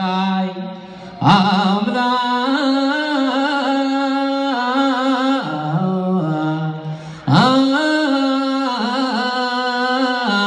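A man chanting solo in Ethiopian Orthodox Yaredic zema style: long held notes that waver and turn in melismatic phrases, the pitch dropping lower a little past the middle. He takes a breath and starts a new phrase about a second in and again about seven seconds in.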